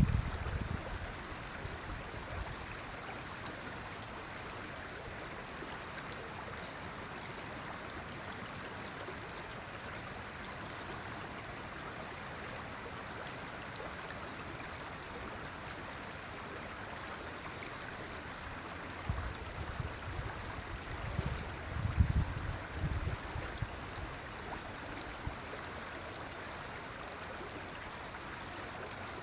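River water flowing steadily: a constant rushing, burbling hiss. Low rumbling bumps of wind on the microphone come and go about twenty seconds in.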